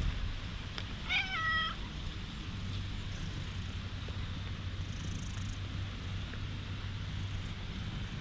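A stray cat meows once about a second in, a short call that falls slightly in pitch.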